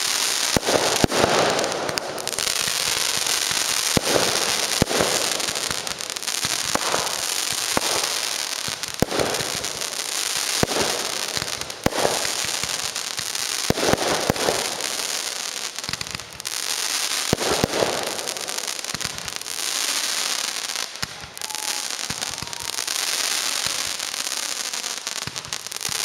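Fireworks display: a continuous crackle of bursting effects with sharp bangs from shells going off about every one to two seconds.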